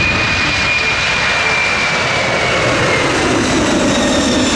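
A Boeing 747 cargo jet taking off, its four turbofan engines running at takeoff power. It gives a steady, loud roar with a high whine on top that slowly drops in pitch as the plane climbs away.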